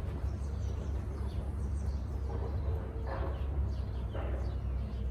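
Steady low hum of honeybees around an opened hive during a frame inspection, with faint bird chirps above it.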